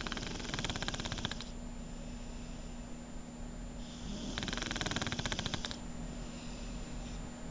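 Snoring: two long, rattling snores about four seconds apart, each lasting about a second and a half, over a steady low hum.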